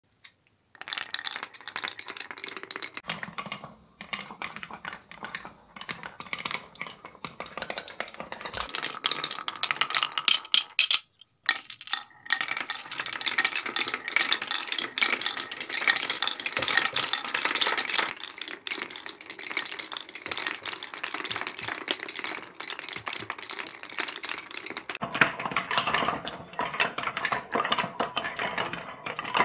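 Several green marbles rolling and clattering along the grooved tracks of a wooden Cuboro marble run: a dense, continuous rattle of small clicks, with a brief break about eleven seconds in.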